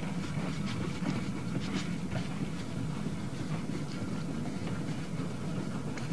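Replica of Stephenson's Rocket steam locomotive on the move: a steady low rumble with sharp exhaust chuffs that thin out and grow fainter after the first couple of seconds as it draws away.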